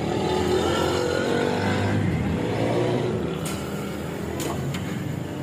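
A motor vehicle's engine running past on the street, its pitch sliding as it goes by, over street noise; a few sharp clicks sound in the second half.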